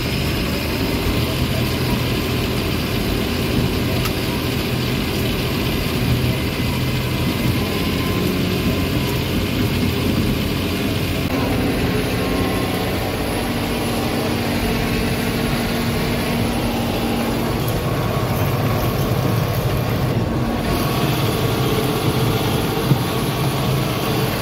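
John Deere 7530 tractor's six-cylinder diesel engine running steadily under load while pulling a reversible plough, heard from inside the cab. Its note shifts slightly about eleven seconds in.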